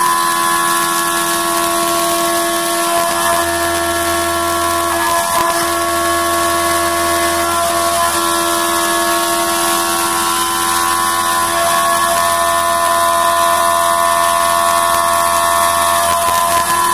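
CNC milling machine high-speed cutting aluminium: the spindle and end mill give a steady high-pitched whine made of several tones over a hiss, with coolant spraying onto the cut. The whine falters briefly a couple of times.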